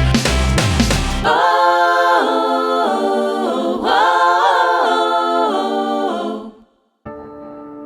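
Soundtrack music: a full-band song gives way about a second in to layered, wordless vocal harmonies, sung chords that fade out near the end. After a brief gap a new song starts softly with sustained instrumental tones.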